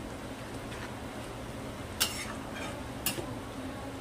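Metal spatula stirring a thick curry in a metal kadhai, with two sharp clinks of spatula against the pan about two and three seconds in.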